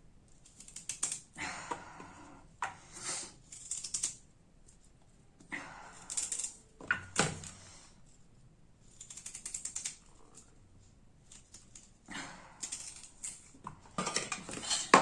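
A knife chopping peeled fresh ginger into small pieces: several runs of quick tapping strokes, with short pauses between them.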